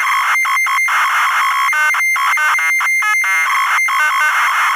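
Loud, buzzy electronic outro sound: synthesized tones over a noisy hiss, broken by several brief gaps, cutting off suddenly near the end.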